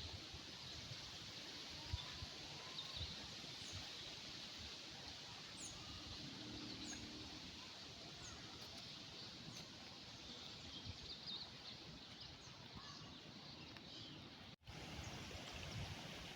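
Faint outdoor countryside ambience: a steady background hiss with small birds chirping now and then. The sound drops out for an instant near the end, as at an edit.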